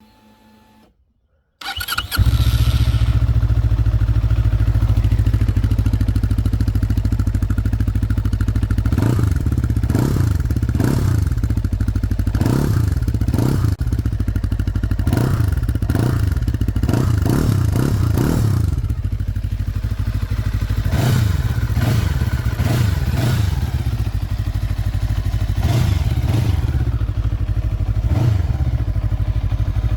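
Junak SR 400 (Zongshen Cyclone RE3) 400cc motorcycle engine on its stock exhaust, starting about two seconds in and settling into a steady idle. From about a third of the way in it is revved again and again with quick throttle blips, with short spells of idle between.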